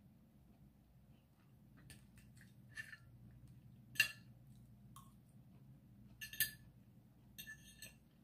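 Spoon and fork clinking and scraping on a ceramic plate as meat is cut apart: scattered clinks, the loudest about four seconds in, and a quick run of small clinks near the end.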